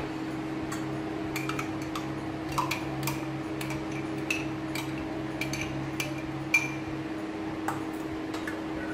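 A spoon tapping and scraping against a grinder jar and a steel bowl as ground onion-tomato paste is emptied onto chicken: a run of irregular sharp clicks with a short ring, the loudest about six and a half seconds in, over a steady low hum.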